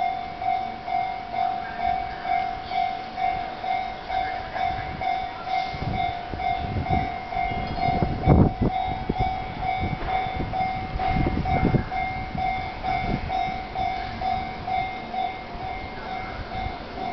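Japanese level-crossing warning bell ringing in an even electronic clang about twice a second. A Chūō Line train, of the E233 series, passes through over the crossing in the middle, a rising and fading rumble with wheel clacks that is loudest about halfway through.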